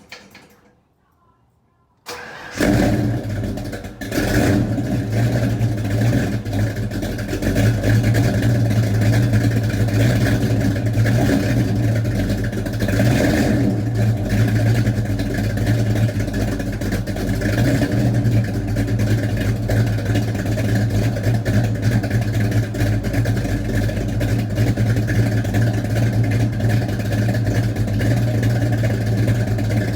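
Freshly rebuilt Ford 302 small-block V8 starting for the first time: a click, then about two seconds in the engine catches, falters briefly, and settles into steady running.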